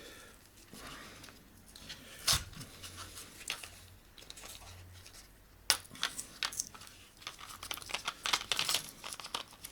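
Crinkling and tearing of small packaging, with scattered clicks and a sharp knock a couple of seconds in; the crackling grows thicker near the end.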